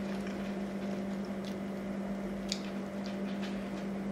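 Mouth sounds of chewing a bacon cheeseburger: a few short wet clicks and smacks, the sharpest about halfway through. Under them runs a steady low hum.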